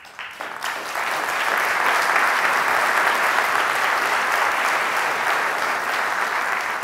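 Audience applause: a few scattered claps at first, building within about a second into steady, dense clapping from a large seated crowd.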